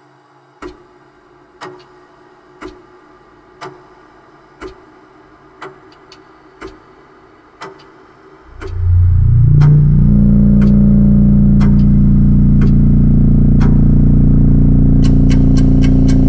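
A clock ticking about once a second. About eight and a half seconds in, a loud low drone rises in steps and settles into a sustained chord, and faster ticking joins it near the end.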